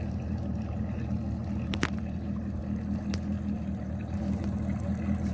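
An engine running steadily with a low, even hum, with a couple of light clicks about two and three seconds in.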